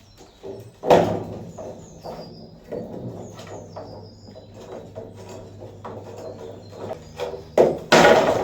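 Irregular metal clanks and knocks from work on a Land Rover Defender's rear axle, which is stuck because its rusted-in coil springs are holding it up. The loudest knock comes about a second in, and a burst of heavier bangs comes near the end.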